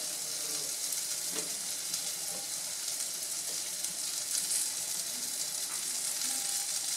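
Diced eggplant, zucchini and tomato sizzling steadily in a large frying pan, with a wooden spatula stirring them and tapping the pan lightly a few times.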